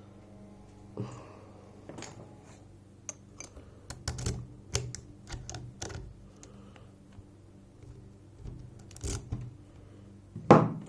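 Irregular small clicks and knocks of a pin-tumbler lock being handled, with a louder knock just before the end, over a steady low hum.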